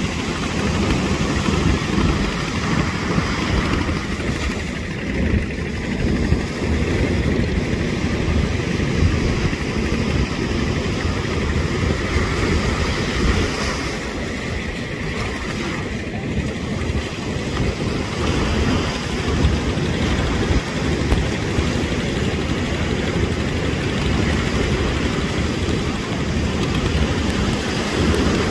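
Steady rushing noise of wind on the microphone and surf washing onto a sandy beach, with a flickering low rumble and no distinct engine tone.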